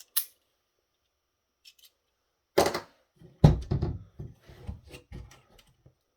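Hands handling parts of an electronics unit being torn down: a short hiss at the start, then almost nothing, then from about two and a half seconds in a run of clicks and knocks as components and the chassis are moved about.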